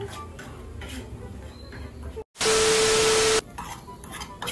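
A spoon stirring a thick flour-and-milk white sauce in a small frying pan, with faint light scraping. A little over two seconds in, after a brief dropout to silence, a loud burst of hiss with a steady tone under it lasts about a second and cuts off suddenly.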